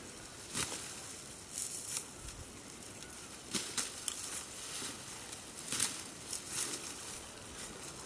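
Dry wheat stalks rustling and crackling in several short, crisp swishes at irregular intervals as the wheat is harvested by hand. The sharpest swish comes about six seconds in.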